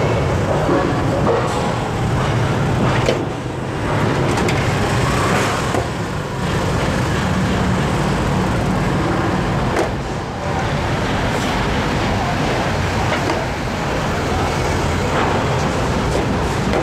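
Steady street traffic: motorbike engines and road noise, with a few light clicks and knocks.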